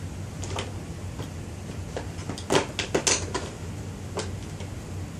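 Plastic lipstick and lip gloss tubes clicking and knocking as they are handled and set down one after another, the busiest run of knocks between about two and three and a half seconds in, over a low steady hum.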